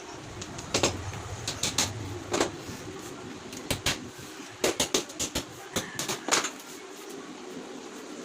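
Irregular sharp knocks and clicks from hand assembly work on a wooden flight case, some coming in quick clusters of two or three, with a brief low hum about a second in.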